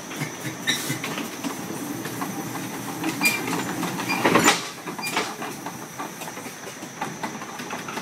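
Foster steam traction engine rolling slowly down off a low-loader trailer's metal ramp: a steady hissing, mechanical running sound broken by irregular knocks and clanks, with one louder burst about four and a half seconds in.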